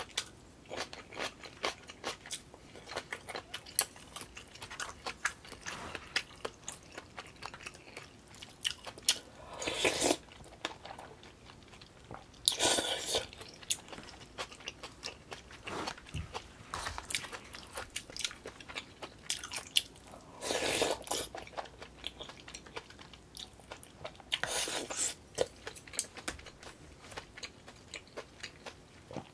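Close-miked eating of Korean food (spicy beef soup, rice and side dishes): a steady run of small wet chewing and biting clicks, with four louder, longer mouth noises spread through.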